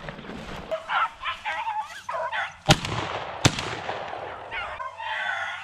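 Beagles baying as they run a rabbit, their voices rising and falling in repeated bawls, with two sharp knocks in the middle.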